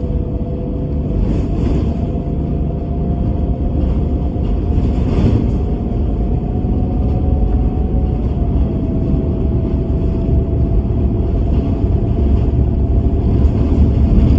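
A bus running with a steady low rumble and a whine held at a nearly constant pitch over it. There are brief hissing swells about a second and a half in and again about five seconds in.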